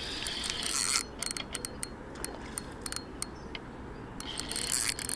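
Spinning reel clicking irregularly while a hooked carp is being played on the rod, with two short rushes of hissy noise, one about a second in and one near the end.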